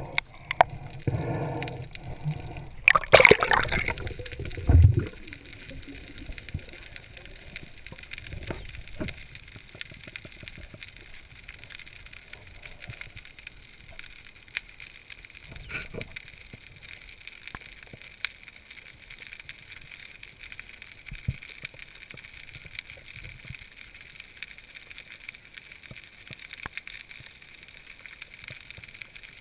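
Underwater sea ambience heard through a camera housing during a breath-hold dive: a steady faint hiss with scattered small clicks and crackles, after loud water noise for the first few seconds.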